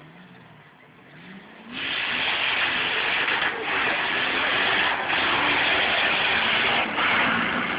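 A drag-racing car accelerating hard at full throttle down the strip. It comes in suddenly about two seconds in and breaks off briefly three times as it shifts up through the gears.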